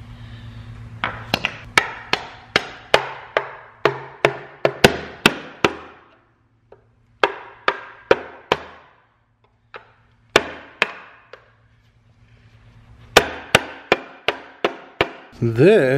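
A hand tool knocking against the valve cover of a Porsche Cayman M97 engine to break it loose for prying off: sharp, ringing knocks about two to three a second, in several runs with short pauses between.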